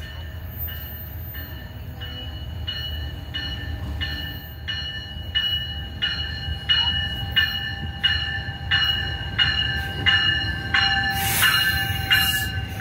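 NJ Transit push-pull commuter train pulling into the station, its bell ringing steadily about one and a half strikes a second and growing louder as it nears, over the low rumble of the train. A short rush of noise comes near the end as the cars draw alongside.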